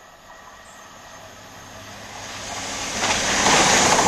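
CrossCountry Voyager diesel multiple unit approaching and running through the station at speed. Its engine and wheel-on-rail noise grow steadily louder, then swell sharply about three seconds in as it reaches the platform.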